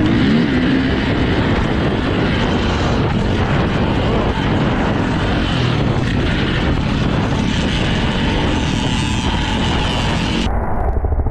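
2004 KTM 450 EXC's four-stroke single-cylinder engine running under load as the bike is ridden on a dirt motocross track, heard from on the bike through heavy wind noise on the microphone. About ten seconds in, the high hiss cuts off suddenly, leaving a duller, lower sound.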